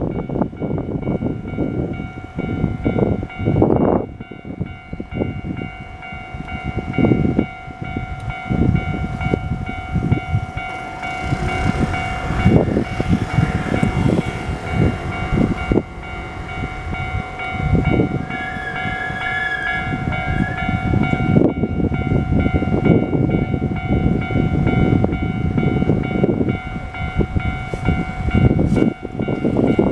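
Keio Line electric commuter trains passing over a level crossing, their wheels knocking over the rail joints in a rapid clatter. The crossing's warning bell rings over it and stops about two-thirds of the way through. A brief high whine comes from the train a little past halfway.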